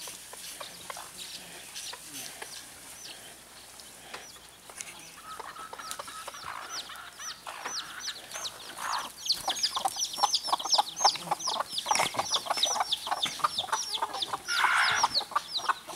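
A brood of Icelandic chicks peeping and hens clucking. Quiet at first, the chicks' short, high, falling peeps turn rapid and continuous about halfway through, with the hens' lower clucks among them.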